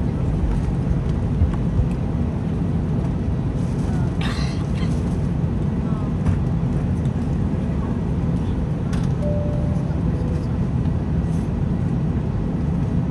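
Steady low rumble of an Airbus A319 airliner cabin on the ground, with a faint murmur of passenger voices and a few small clicks.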